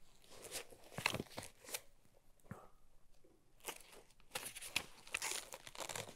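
Paper pages of a bound booklet rustling and crinkling as they are leafed through: a string of soft, short rustles, busiest about four to five and a half seconds in.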